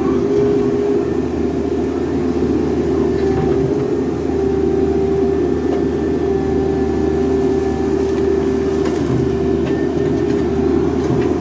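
Hydraulic excavator's diesel engine running steadily, with a constant droning tone over a low rumble.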